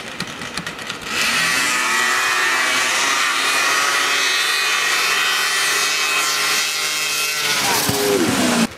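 Two snowmobiles idling at the start line, then launching about a second in at full throttle, their engine pitch rising and held high. Near the end they pass close by with the pitch falling, and the sound cuts off suddenly.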